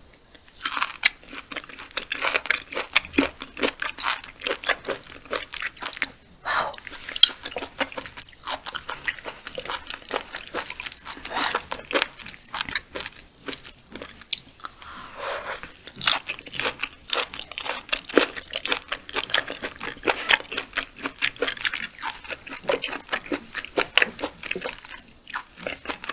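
Close-miked chewing of raw yellowtail sashimi: a dense run of quick mouth clicks, broken by a few short pauses.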